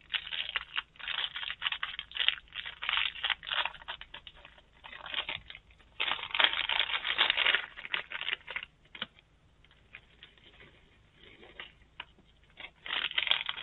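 Small plastic bag crinkling and rustling in irregular bursts as it is worked open by hand, with light clicks of beads; it goes quieter for a few seconds near the end, then starts up again.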